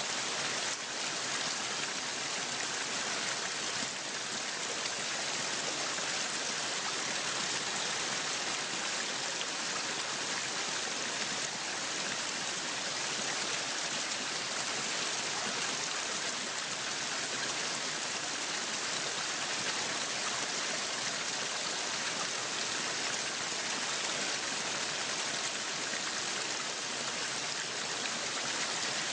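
Waterfall: a steady, unbroken rush of falling water, loudest in its hiss.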